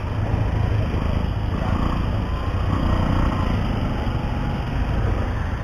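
Motor scooter engine running steadily at low speed as it creeps through slow street traffic, a steady low rumble, with street voices faintly in the background.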